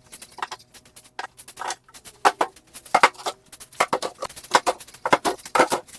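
A quick, irregular run of sharp knocks and clatter, several a second.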